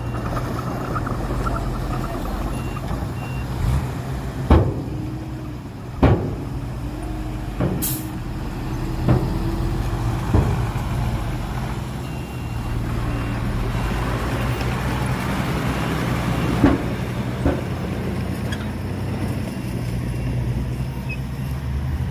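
Heavy diesel earthmoving machinery running steadily, with sharp metal clanks about every second and a half between roughly 4 and 10 seconds in and once more near 17 seconds, and a short hiss of air around 8 seconds.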